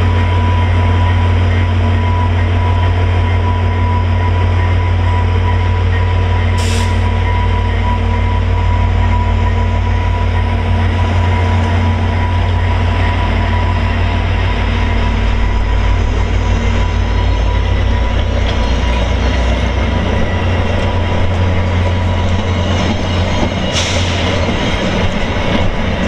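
VIA Rail passenger train with diesel locomotives and LRC coaches rolling past a station platform. The heavy diesel rumble fades as the locomotives pull away while the coaches' wheels run on the rails, with brief high squeals about a quarter of the way in and again near the end.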